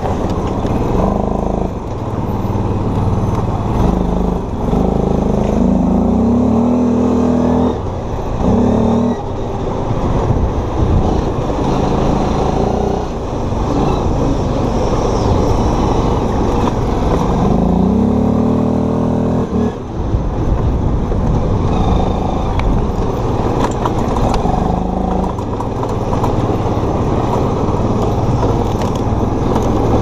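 Chinese utility ATV's engine running as it is ridden. It revs up under throttle several times, the pitch climbing with each burst, and drops back between them.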